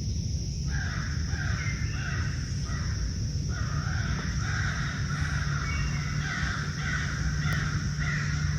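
A chorus of frogs calling: many rapid, overlapping harsh croaks that begin just under a second in, pause briefly in the middle, then carry on, over a steady high-pitched hum.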